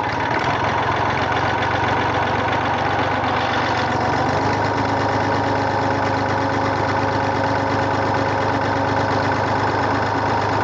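Tractor engine running steadily under PTO load, driving a three-point post hole digger auger as it bores into the ground; the low engine hum grows stronger about four seconds in.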